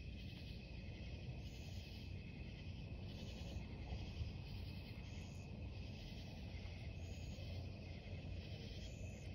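Chorus of night insects chirping in an even, pulsing rhythm, a little under two pulses a second, over a steady high trill, with a low rumble underneath.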